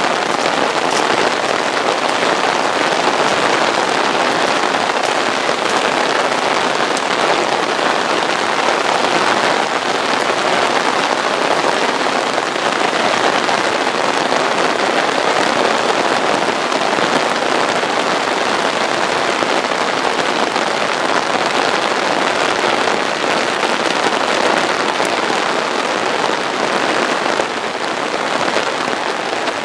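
Heavy rain pouring down steadily, a dense even hiss with the odd close drop ticking.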